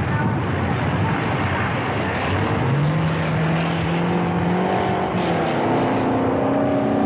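Several racing car engines running hard together, with one engine holding a steady, slightly rising note through the middle.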